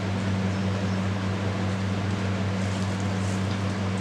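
Steady low electrical hum with an even background hiss, unchanging throughout.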